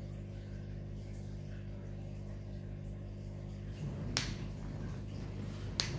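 Steady low background hum, with two sharp clicks about four seconds in and again near the end.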